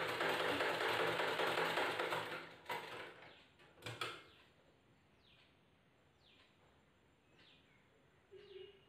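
Black domestic sewing machine running, stitching knit fabric for about two and a half seconds and then stopping, followed by two sharp knocks. Afterwards a bird gives a faint short falling chirp about every three-quarters of a second.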